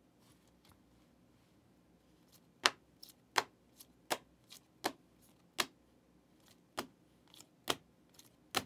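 Rigid plastic card top loaders clicking against one another as a stack of trading cards is flipped through one card at a time. Short sharp clicks come about every three-quarters of a second, starting about two and a half seconds in.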